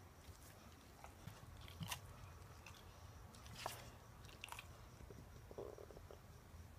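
A dog's faint mouth clicks and smacks: a few separate ones about two seconds in, near the middle and soon after, over a quiet room.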